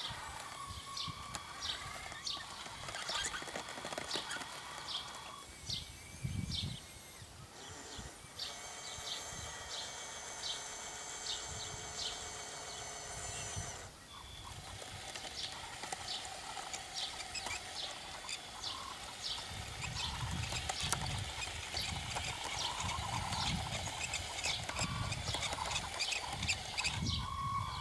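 Radio-controlled crawler loader driving over sand: its electric drive whines in steady tones that cut off abruptly about halfway through, over a run of sharp clicks from its tracks.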